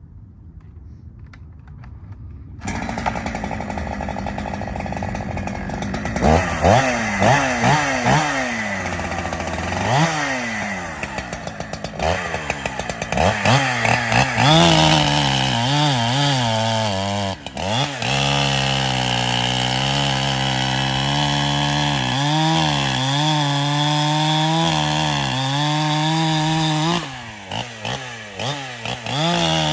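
Chinese-made 372-pattern chainsaw coming in at idle about three seconds in, then revved in several quick blips. From about halfway it is held at full throttle cutting almond wood, its pitch sagging and recovering under load, with a short drop in revs near the end.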